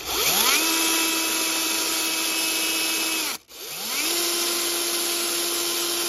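DeWalt cordless drill with a twist bit boring a small hole up into a soffit. The motor spins up and runs at a steady speed for about three seconds, stops briefly, then spins up again and runs steadily.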